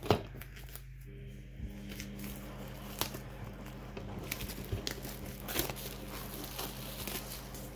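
Clear plastic shrink wrap being torn open and pulled off a cardboard DVD box, with a steady run of crinkling and small crackles. There is a sharp tap right at the start.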